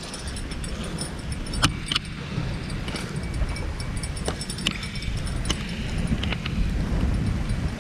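Storm wind buffeting the microphone as a steady low rumble, with about six short sharp clicks and clinks scattered through it.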